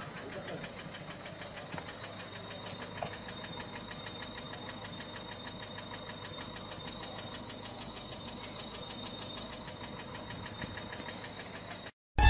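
Peugeot 407's 1.6 HDi four-cylinder turbo-diesel engine running at idle with a fast, regular ticking knock, which the mechanic suspects comes from a broken camshaft tappet or a damaged camshaft. The sound cuts off abruptly near the end.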